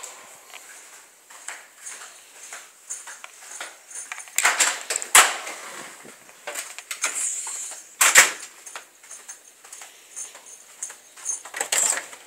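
Kennel gates and doors being handled: a run of metal clicks and knocks, the sharpest about five and eight seconds in, and a cluster near the end.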